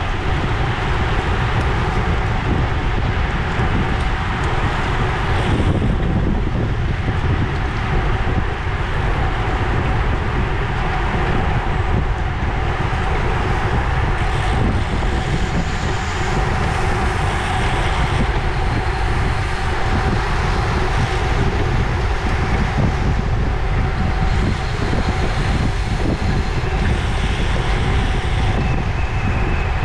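Steady wind rush buffeting the microphone of a road bike riding at about 20 to 26 mph in a racing pack, with tyre noise on the asphalt underneath.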